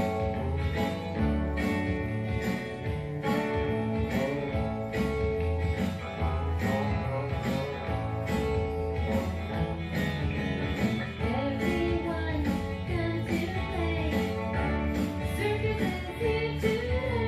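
A song playing: plucked guitar accompaniment with a steady beat, and a singing voice whose melody stands out more in the second half.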